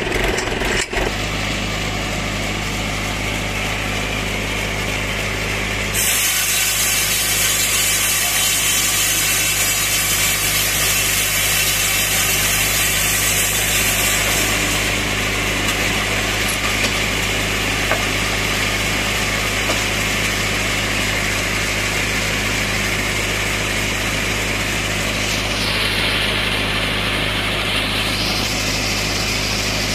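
Tractor engine running steadily under load as it drives a mobile sawmill, with the mill's moving parts adding hiss on top; the sound steps up a little about six seconds in.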